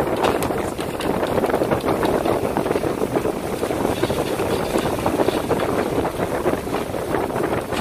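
Steady rushing noise aboard a fishing boat at sea, with wind buffeting the microphone.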